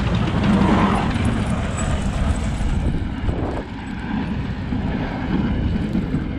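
Diesel snowplow truck passing close by and driving away; its rumble is loudest at first and drops off about three and a half seconds in.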